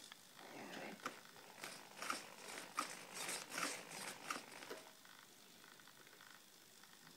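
Small hobby servos on a camera pan-tilt mount whirring in a series of short, faint bursts as the radio controls are moved, stopping about five seconds in.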